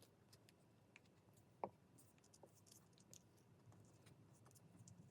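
Near silence with faint paper handling: small rustles and light ticks as paper card points are curled over and pressed down to glue. One sharper click comes about one and a half seconds in.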